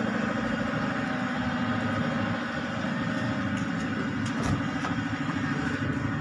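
Honda CR-V's 2.4-litre four-cylinder engine idling steadily. There is a brief click about four and a half seconds in as the driver's door is opened.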